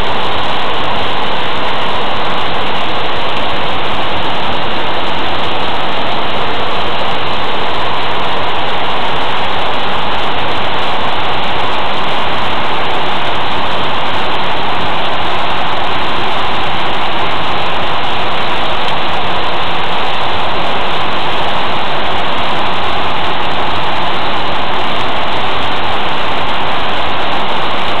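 Waterfall of several strands plunging into a pool, its spray falling like heavy rain onto the surrounding leaves: a loud, steady rush of water.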